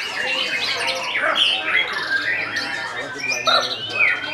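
Young white-rumped shama singing a fast, varied run of whistled notes and glides, overlapping with the songs of other caged birds.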